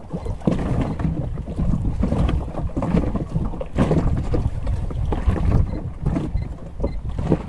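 Wind buffeting the microphone on an open boat deck: a steady low rumble, broken by irregular knocks and gusts.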